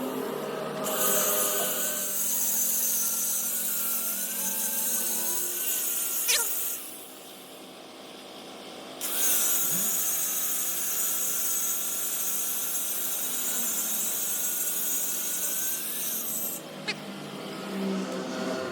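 Handheld angle grinder working on steel, running with a wavering motor whine under a loud hiss. It runs in two long passes with a pause of about two seconds in between.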